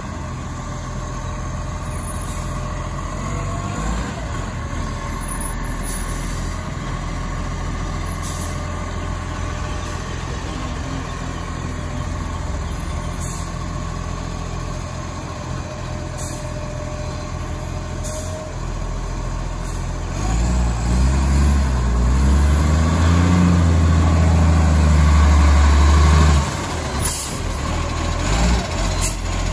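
Side-loader garbage truck's diesel engine running steadily as the truck drives up the street. About two-thirds of the way through, the engine revs up much louder for about six seconds, its pitch rising and falling, then drops back suddenly.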